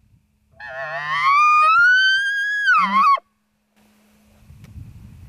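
Bull elk bugling: one long call that climbs into a high whistle, holds, then dips and breaks off about three seconds in.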